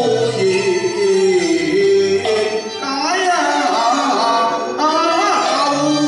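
Cantonese opera music: a Chinese instrumental ensemble plays a melody with sliding notes over low held bass notes.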